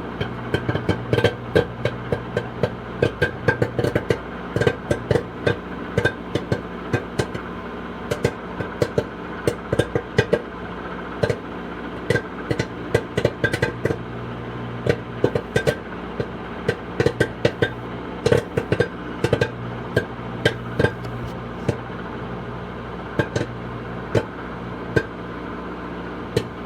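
Popcorn kernels popping without oil in a silicone popcorn popper bowl inside a running microwave oven. Sharp irregular pops come several a second over the oven's steady hum.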